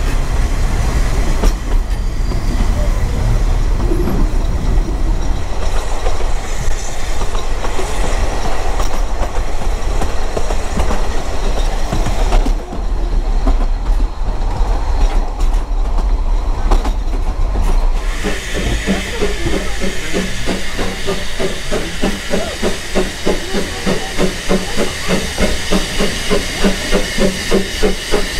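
Narrow-gauge railway carriage in motion: a steady rumble and clatter of wheels on rails. About two-thirds of the way through, a regular pulsing beat sets in over it, with more hiss above.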